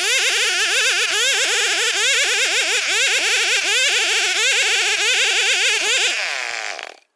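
Old chainsaw cutting through dense Borneo ironwood, running at high revs with a rapidly wavering pitch under load. About six seconds in the engine note falls away, and the sound stops abruptly shortly after.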